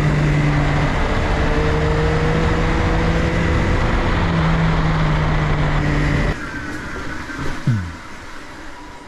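Yamaha XSR900's three-cylinder engine running at a steady cruise under heavy wind rush while riding. About six seconds in, the engine and wind noise cut off abruptly, leaving quieter sound with one short falling whine.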